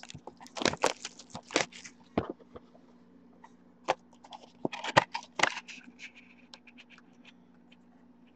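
Cardboard trading-card hobby box being handled and opened by hand: bursts of scraping and rustling of the box flap and packaging, followed by a few scattered light clicks.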